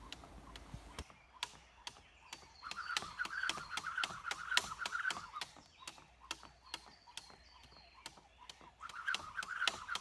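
Jump rope ticking against a wooden platform in a steady run of light taps a few times a second. Twice, for about three seconds each, a rippling fast whir joins in as the rope spins for double unders.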